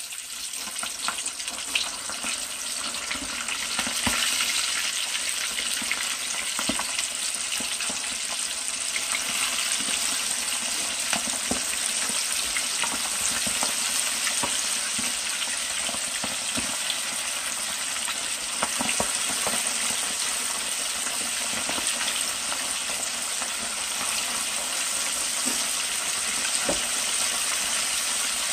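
Dredged chicken thighs deep-frying in oil at about 375–380°F in a wok: a steady, loud sizzle that grows over the first few seconds as the pieces are lowered in with tongs, then holds, with scattered pops.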